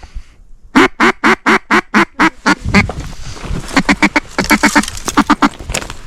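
Loud runs of mallard-style quacks, evenly spaced at about four a second, in series near the start and again later, with a low rustling rumble in between.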